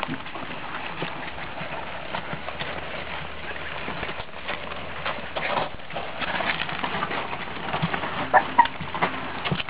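One-month-old Chesapeake Bay Retriever puppies moving about: scattered small taps and scuffles, with two short high squeaks close together near the end.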